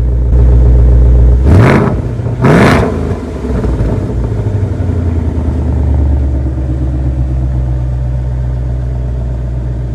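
Ford Mustang GT's 5.0 Coyote V8 idling through its active exhaust. It is blipped twice in quick succession about a second and a half in, each a sharp rev that rises and falls, then it settles back to a steady idle.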